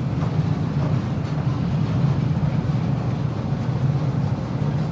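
Freight train passing, a steady heavy rumble of rolling wagons with a few faint wheel clacks in the first second or so.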